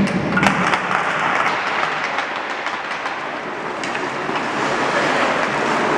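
Ice-rink crowd noise: a dense wash of applause and cheering, with a few sharp knocks in the first second.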